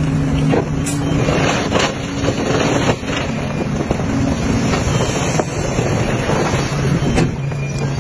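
Heavy diesel construction machinery, dump truck or bulldozer, running steadily under load, with a few sharp knocks about one and two seconds in and again near the end.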